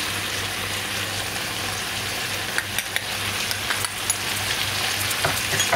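Chopped cabbage and onion sizzling steadily in oil in a large frying pan, with a steady low hum under it. A few light clicks come from a metal spoon against a small bowl as red pepper is spooned in.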